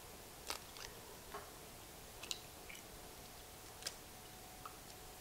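Eggshells being cracked and pulled apart by hand over a bowl: several short, faint cracking clicks, spread irregularly over a few seconds.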